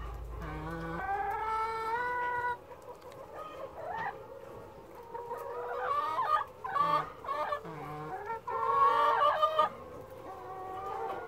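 A flock of hens clucking and calling, with several drawn-out, overlapping calls; a long rising call comes first, and a denser, louder run of calls follows in the second half.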